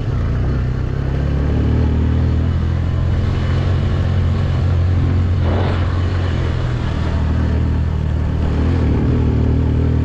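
Motorcycle engine running steadily under way, with a brief rushing noise about halfway through.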